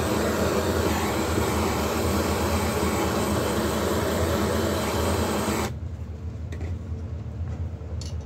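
Jeweller's gas torch flame running steadily as it anneals fine sterling silver filigree wire, then shut off abruptly about two-thirds of the way through. A few faint ticks follow.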